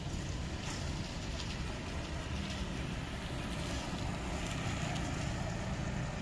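Steady low rumble of an engine idling, with a constant hum that becomes clearer after about two seconds.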